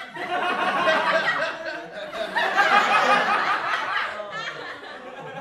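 Several voices at once, laughing and chattering.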